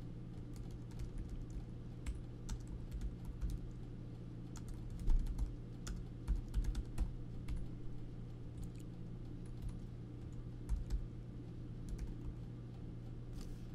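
Typing on a computer keyboard: scattered keystroke clicks in short, irregular runs, over a steady low hum.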